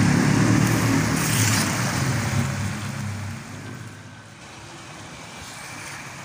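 A motor engine drones steadily and fades away over about four seconds, with a brief hiss about a second in; a faint wash of noise remains after it.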